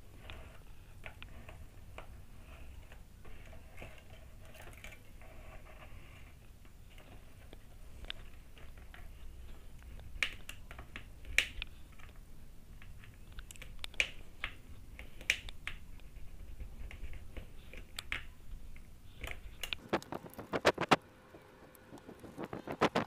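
Loose cutter-knife blade scratching and ticking along the edge of a metal TV panel frame as it slices through plastic polarizer film, in scattered sharp clicks that come thickest near the end. A low hum runs underneath and stops shortly before the end.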